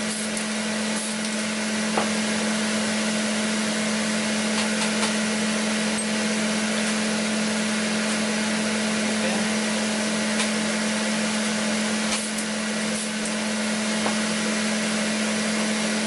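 Exhaust fan running steadily under a broad hiss, with a constant low hum.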